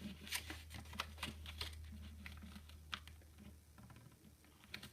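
A sheet of paper being folded and creased by hand: faint, irregular clicks and light taps as the paper is pressed down against a surface, over a steady low hum.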